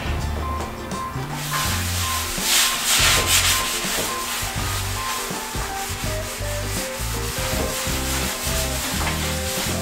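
A sponge rubbing in repeated strokes over a glass shower door, starting about one and a half seconds in, over background music with a steady bass line.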